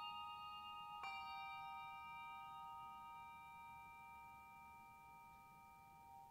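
Handbell choir ringing: a chord of bells fading, a new chord struck about a second in that rings on and slowly decays, then the bells are damped and cut off near the end.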